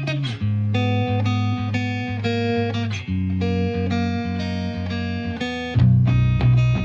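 Background music led by plucked guitar, with notes changing about every half second over a steady bass line that grows louder near the end.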